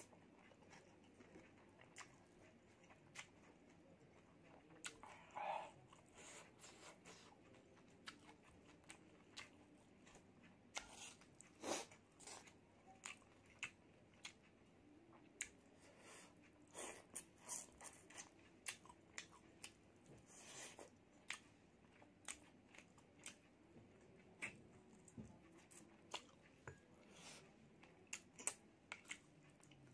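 Close-miked chewing of spicy instant noodle soup: a quiet stream of sharp, wet mouth clicks and smacks.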